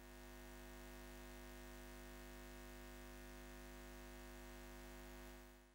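Near silence: a faint, steady electrical hum with light hiss, fading out near the end.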